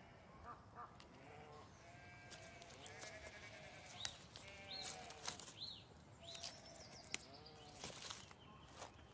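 Sheep bleating again and again, faint and wavering, with short high chirps in the middle of the stretch.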